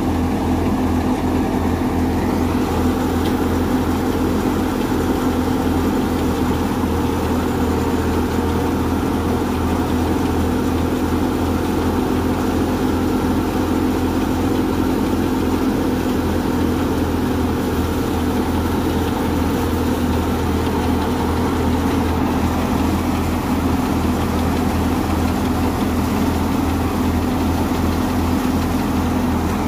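Wheat thresher running steadily while wheat is threshed, with the continuous hum of the engine driving it.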